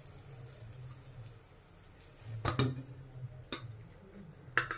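Light clicks and taps of kitchen utensils handled at a frying pan, over a low steady hum. There are two close together about two and a half seconds in, one at three and a half, and another near the end.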